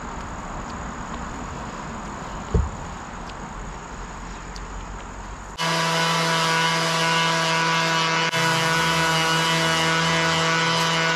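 Crickets chirping steadily outdoors, with a single knock, then a power sander starts suddenly about halfway through and runs at a steady, high whine for about five seconds before cutting off.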